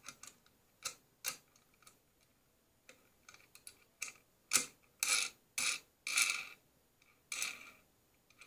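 Steel shelf corner bracket being fitted onto a threaded steel rod by hand: scattered light metallic clicks, then a run of short clinks and scrapes about every half second in the second half as the bracket catches and rubs on the rod's threads.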